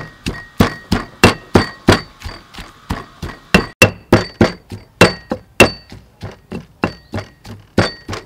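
Stone pestle pounding in a heavy stone mortar, crushing chilies and garlic into a paste: steady strikes about three a second, each a hard knock with a short ringing clink from the stone.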